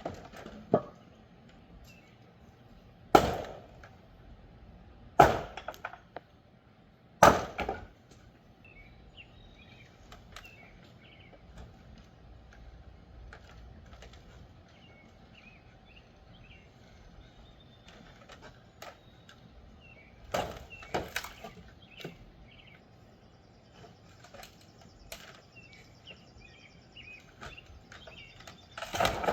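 Heavy blows on wooden framing during demolition: three loud strikes about two seconds apart, later a quick run of knocks and another burst near the end. Faint bird chirps between the blows.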